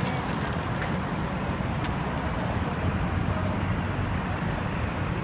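Steady low rumble of vehicle and road noise, with no siren wail.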